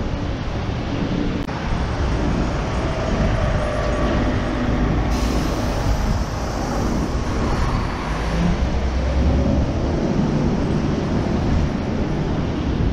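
Steady city street ambience: a continuous rumbling noise with a heavy low rumble and no distinct events.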